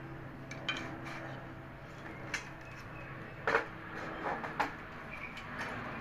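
Wire bird cage being handled: a few separate clinks and knocks, the loudest about three and a half seconds in, over a steady low hum.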